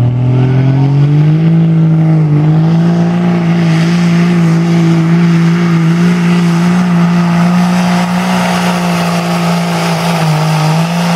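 Cummins turbo-diesel pickup engine under full load, pulling a sled. The revs climb over the first second or so, then hold steady at a high pitch, with a brief dip near the end.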